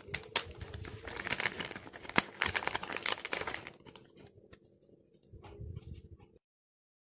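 Paper-and-plastic packaging of new wired earphones being torn open and crinkled, with sharp clicks. The handling then turns fainter as the earphone cable is pulled out, and the sound cuts off abruptly about six seconds in.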